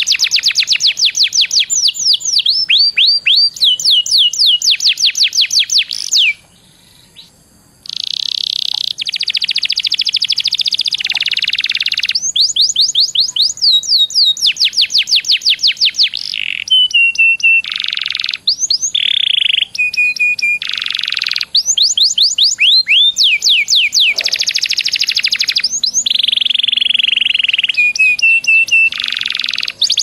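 Domestic canary singing a long song: fast trills of rapidly repeated sweeping notes alternating with dense buzzy rolls, with a break of about a second and a half some six seconds in.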